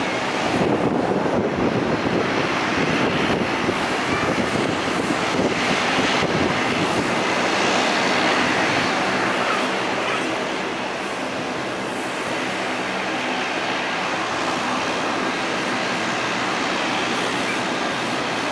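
Bombardier Q400's two Pratt & Whitney PW150A turboprops and six-bladed propellers running at taxi power as the airliner rolls slowly: a steady, dense drone with a faint propeller hum underneath.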